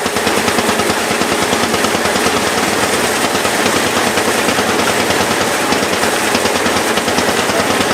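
Lanz Bulldog tractor's single-cylinder two-stroke hot-bulb engine running steadily, a fast, even stream of exhaust beats.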